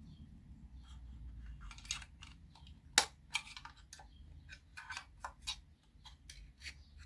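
Irregular small clicks and scrapes of a screwdriver working at a plastic speaker enclosure, with one sharp click about three seconds in.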